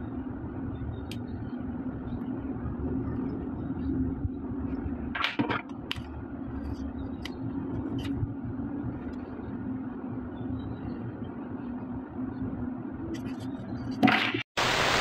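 Clear plastic figure-stand parts and a plastic parts tray being handled, giving a few light clicks and rustles over a steady low background rumble and hum. A loud burst of hiss comes near the end and cuts off abruptly.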